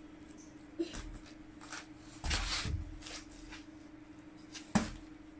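Thuds, knocks and shuffling of a gymnast's body, hands and feet on a foam floor mat as she moves between positions, with a sharp knock near the end. A steady low hum runs underneath.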